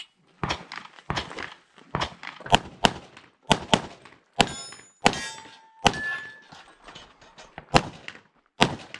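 Pistol shots fired in quick strings on a practical shooting stage, about a dozen in all. Around the middle a hit steel target rings with a metallic tone.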